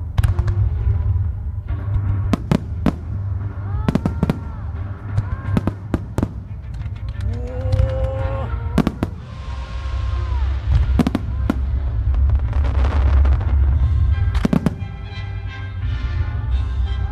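Fireworks display: a rapid series of sharp shell bursts and booms over a continuous low rumble, with music playing alongside. A stretch of hissing crackle comes in about halfway through.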